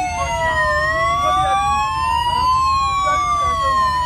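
Two motorcade sirens wailing out of step, each tone gliding slowly up and down, over a steady low rumble.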